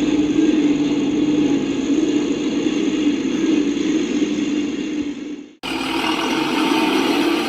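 Toy RC truck's small electric motor and gears whirring steadily. The sound fades and cuts out abruptly about five and a half seconds in, then starts again at full level.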